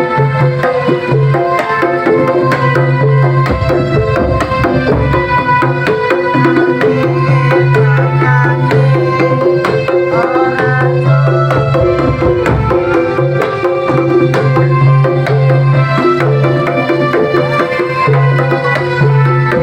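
Loud music with hand drums and a heavy, phrased bass line, played over a PA sound system during a sound check.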